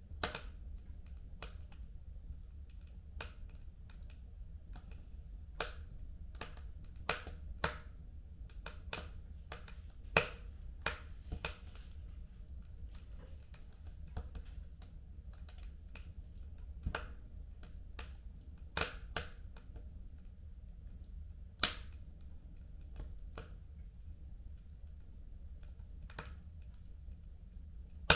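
Fire in a home fireplace crackling: irregular sharp pops and snaps, a few much louder than the rest, over a low steady rumble.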